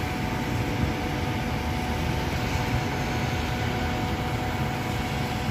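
Steady road-traffic noise from cars driving around a roundabout on rain-wet roads, with a faint steady hum underneath.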